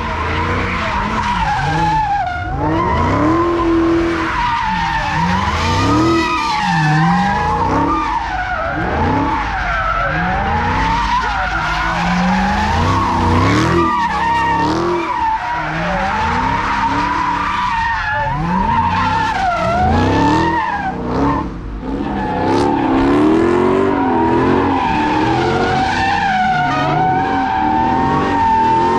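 Dodge Charger doing donuts: tires squealing in a steady high screech while the engine revs rise and fall over and over.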